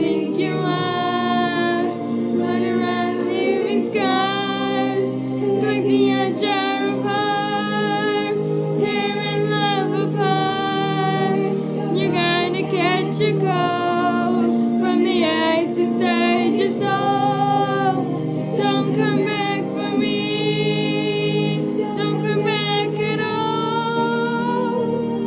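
A woman singing a pop ballad over a steady low backing accompaniment, her voice holding and bending long notes with no clear words.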